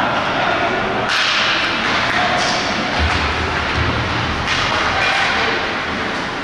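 Ice hockey skate blades scraping across the ice in several sudden hissing strokes, with a few dull thuds between them.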